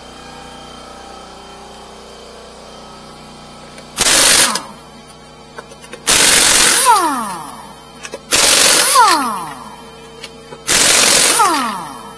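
Impact wrench hammering on a wheel's lug nuts in four loud bursts, each under a second long, each followed by a falling whine as the tool spins down.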